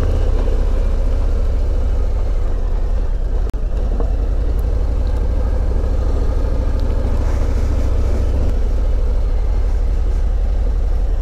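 Harley-Davidson Ultra Limited's V-twin engine running steadily as the motorcycle is ridden, with one brief dip in level about three and a half seconds in.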